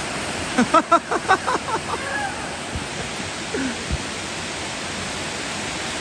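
Waterfall rushing steadily as water cascades over tiered rock ledges. A voice exclaims for about two seconds starting about half a second in.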